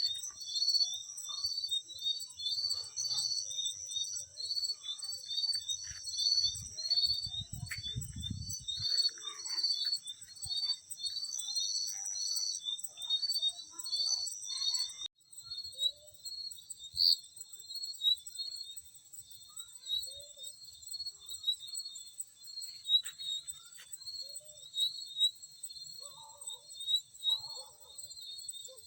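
Night chorus of field crickets: rapid chirps repeating in even series over a steady high-pitched insect trill. A brief low rumble comes about seven seconds in, and the recording cuts abruptly about halfway through.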